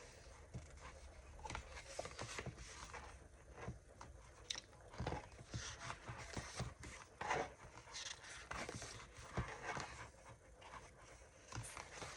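Paper sticker sheets being handled and shuffled: irregular soft rustles and crinkles with small taps.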